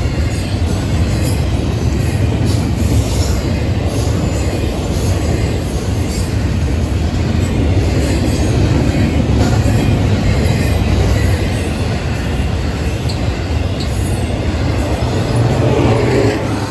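Florida East Coast Railway freight train rolling past, a steady loud rumble and rattle of railcar wheels on the rails with occasional faint clicks.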